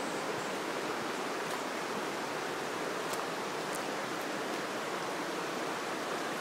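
Shallow river water flowing steadily over stones, an even rushing hiss.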